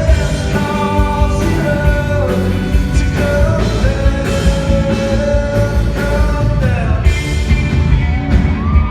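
Live pop-rock song: a male singer holds long sung notes over a full band with drums and heavy bass, heard from within the arena audience.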